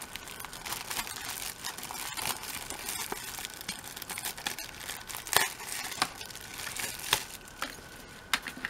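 Clear plastic bag crinkling as hands pull it off a boxed CD album, with a few sharper crackles about halfway through.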